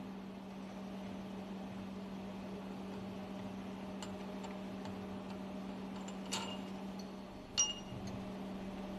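Steady low machinery hum, with two sharp ringing metal clinks about a second apart near the end, typical of steel tools on a marine diesel's fuel injection pump being dismantled.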